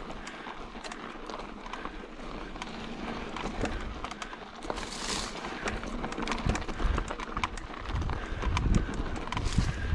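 Mountain bike descending a rough trail: tyres clattering over rocks and the bike rattling in quick irregular clicks, over steady wind noise on the microphone. The low rumble grows heavier in the second half, with two brief hissing rushes, one about halfway and one near the end.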